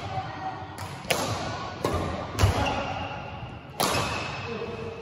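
Badminton rackets striking a shuttlecock: a few sharp smacks about a second apart, each ringing on in the echo of a large sports hall, with a dull thud about halfway.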